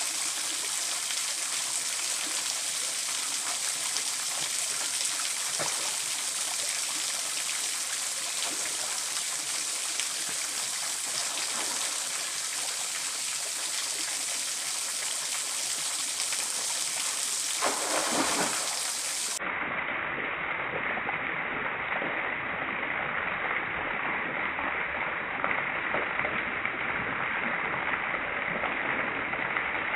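Small waterfall spilling over rock into a shallow stream pool, a steady rush of falling and splashing water.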